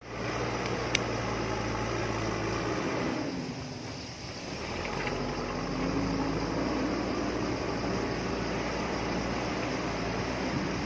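JCB backhoe loader's diesel engine running, dropping in level and pitch about three seconds in and picking up again a second or so later. One sharp click about a second in.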